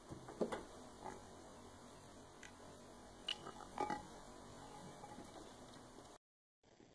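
A few small splashes and drips of water, with light knocks against a glass container, as a pet rat dunks its head into shallow water and pulls out a pea, over a faint steady hum. The splashes come in a cluster near the start and again around the middle.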